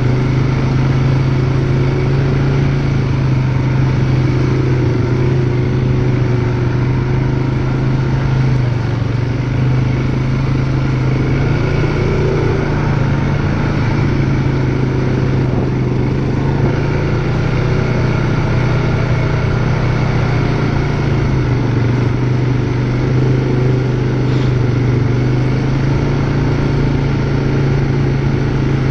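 ATV engine running at a steady, unhurried pace, its pitch dipping and rising a little a few times.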